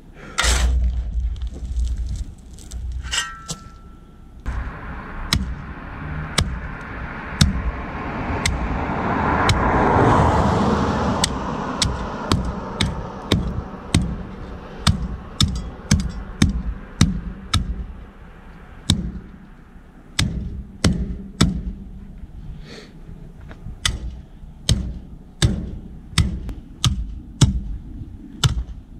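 Steel hand tamper pounding gravel down around a post, regular thuds about two a second. Before that a shovel works the gravel with a short metallic ring, and a broad rush of noise swells and fades around ten seconds in.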